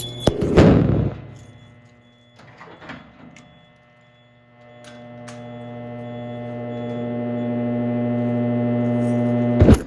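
A loud knock about half a second in, then a steady hum that grows gradually louder and is cut off by a sharp click near the end.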